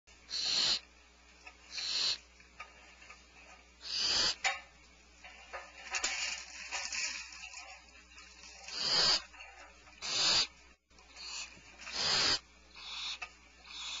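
Barn owl nestlings hissing: about a dozen harsh, breathy calls, each about half a second long, repeated every second or two, some overlapping.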